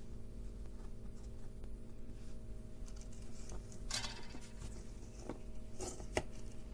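Small clicks and scrapes of hand tools and components on a workbench during circuit board soldering, with a few sharper taps about four seconds in and again near the end, over a low steady hum.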